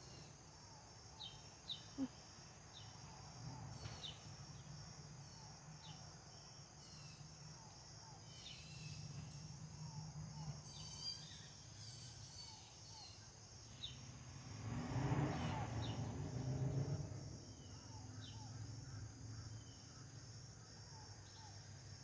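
Insect chorus trilling steadily at a high pitch, with scattered short chirps over it. About two-thirds of the way through, a louder rushing noise swells for a couple of seconds.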